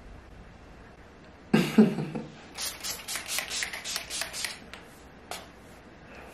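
Pump spray bottle spritzing in a quick run of short, hissy bursts, about ten in two seconds, with one more spritz a second later. It comes just after a sudden, louder rush of noise lasting under a second.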